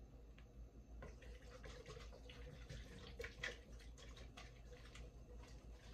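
Small whisk stirring flour into hot oil in a pot to start a roux, heard as faint, irregular clicks and scrapes of the whisk against the pot.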